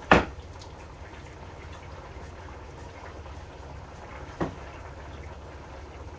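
Cookware knocks while roti cooks on a tawa: one sharp, loud knock at the very start and a softer one about four seconds later, over a steady low hum.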